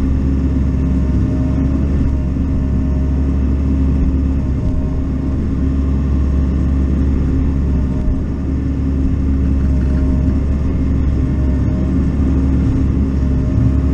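Bobcat E42 mini excavator's diesel engine running steadily, heard from inside the cab, with a fainter higher whine coming and going several times as the boom and bucket are worked.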